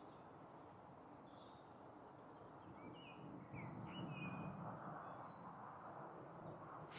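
Faint birdsong: a few short chirps and quick sliding notes. Under it is a soft low rumble that swells a little about halfway through.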